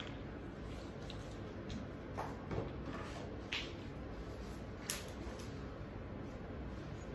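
Steady low background hiss of a small room, with a few faint short clicks and taps.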